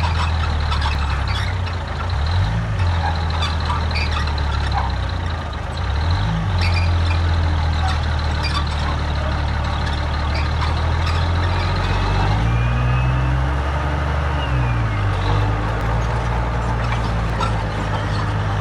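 Diesel engine of heavy earthmoving machinery running hard. Its pitch dips and recovers about 2 and 6 seconds in, then swings up and back down again from about 12 to 15 seconds in.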